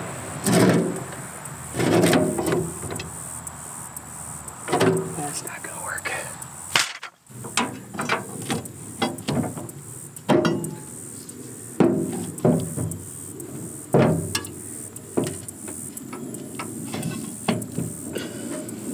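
Steel tools knocking and clanking against a rusted steel rotary mower deck and its blade hub, with a few heavier thuds in the first few seconds and then a run of short, sharp metal knocks.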